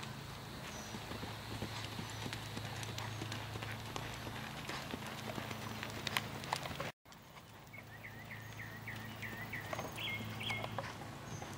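Hoofbeats of a ridden red roan horse cantering on sand footing: a run of irregular soft thuds over a steady low hum. The sound drops out for a moment about seven seconds in, and a string of short high chirps follows.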